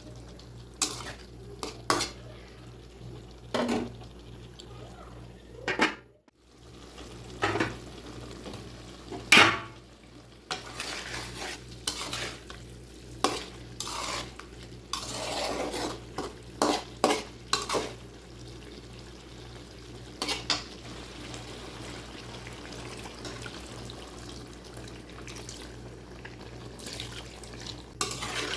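A metal spatula knocking, clinking and scraping against a cooking pan while stirring, in irregular strokes, over a low steady hiss.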